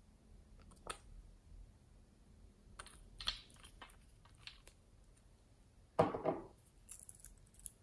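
Small clicks and taps of a glass nail-polish bottle and its cap being handled and screwed shut, with one louder brief knock about six seconds in.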